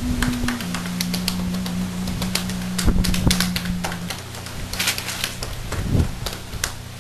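Background music of low, steady held notes, with scattered sharp clicks and taps over it, bunched most thickly about five seconds in.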